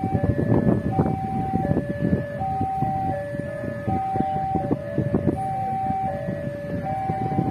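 Railway level-crossing warning alarm sounding its electronic two-tone signal, a higher and a lower note alternating about every three-quarters of a second, the warning that a train is approaching. A rough rumble of road traffic runs underneath.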